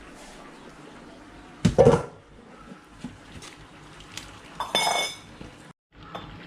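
Metal kitchen utensils and cookware knocking and clinking. There is a heavy knock about two seconds in, then a bright ringing clink of metal on metal near the end.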